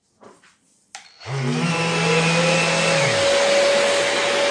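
Festool cordless sander switched on with a click about a second in, its Bluetooth-linked dust extractor starting with it: a steady rush of motor and suction noise, with a whine that rises as the motors spin up and then holds steady.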